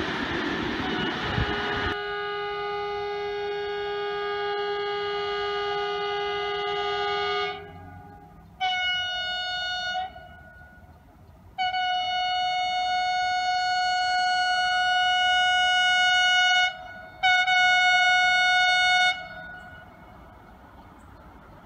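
A passing train's wheel and rail noise fades out about two seconds in as a steady horn sounds for about five seconds. Then a louder, higher-pitched train horn gives three blasts: short, long, short.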